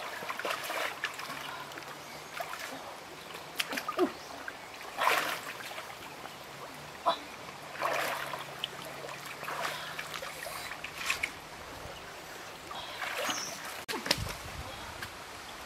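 Water splashing and sloshing in irregular bursts as a person wades through a shallow stream.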